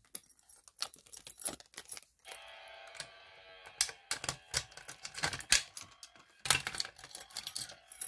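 Keys on a lanyard jangling and clicking as a key is worked in the reset lock of a Simplex fire alarm pull station to reset its handle. Faint music from a speaker comes in about two seconds in.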